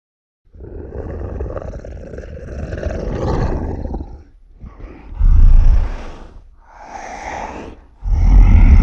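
Zilla monster sound effects from the 1998 Godzilla: a long, rumbling growl-roar lasting about four seconds, then three shorter, louder roars in quick succession.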